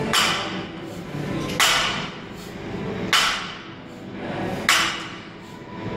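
Barbell loaded with bumper plates set down on a rubber gym floor with each rep of a set of deadlifts: four thuds, evenly spaced about a second and a half apart, each with a short ring of the bar.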